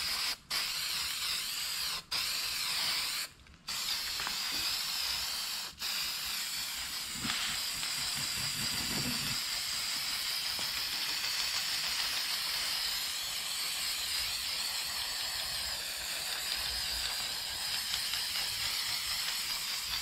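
Aerosol spray can of rust reformer paint hissing steadily as it is sprayed, stopping briefly a few times in the first six seconds as the nozzle is let go.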